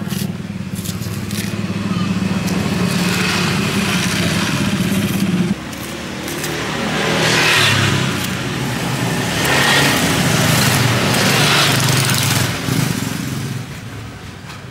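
Motorcycle engines running close by: a steady engine drone that cuts off suddenly about five and a half seconds in, then three motorbikes passing, each swelling and fading. Beneath them, the scrape of a rice spoon peeling raw green bananas.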